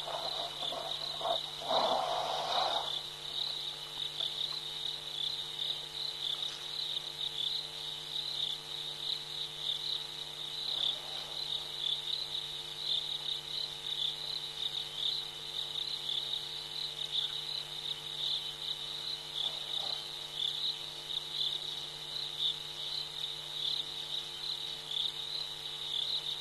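Insects chirping in a continuous high-pitched trill. A short, louder noisy sound comes about two seconds in.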